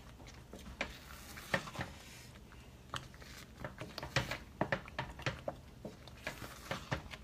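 Wooden spatula stirring and scraping thick, nearly cooked ube halaya in a stainless steel saucepan, with irregular soft scrapes and clicks of wood against the pan.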